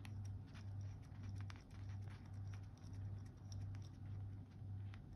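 Faint, scattered clicks and small handling sounds from fingers working a stainless steel chronograph watch's crown and pushers and its metal bracelet, over a low hum that swells and dips about twice a second.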